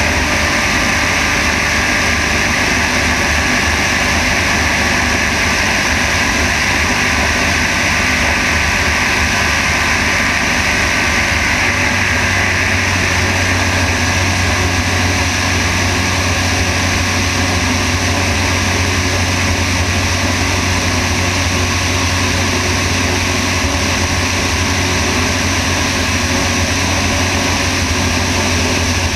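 Sonex light aircraft's engine and propeller running steadily in flight, heard from under the wing with a heavy rush of wind over the camera. The low drone grows stronger about twelve seconds in.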